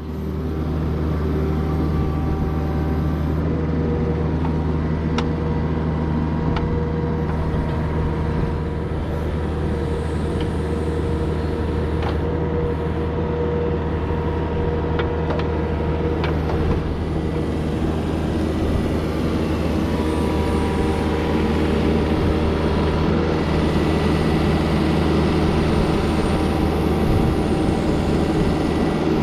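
Kubota mini excavator's diesel engine running steadily under work, with a few sharp knocks as the bucket digs.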